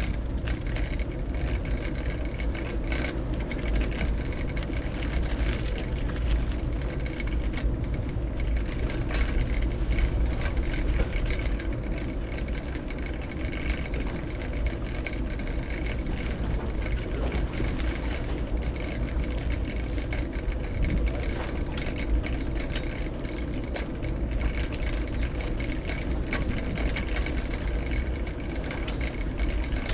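Steady low rumble of city traffic and road noise heard from a moving bicycle, heaviest in the deep bass, with wind on the microphone.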